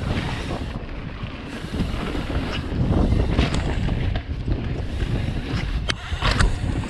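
Wind buffeting a chest-mounted camera's microphone over the rumble of mountain bike tyres rolling fast on a packed dirt trail, with a sharp clack from the bike about six seconds in.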